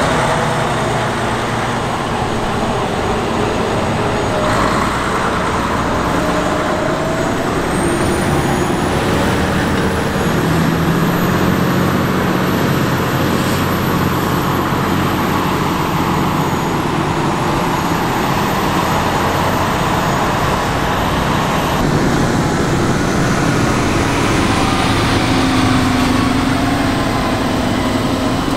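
Heavy tractor diesel engines working under load as Claas Xerion 5000 tractors push and compact maize silage on the clamp with push blades. A thin high whine climbs in pitch about eight seconds in and holds until about twenty-two seconds, when the sound changes.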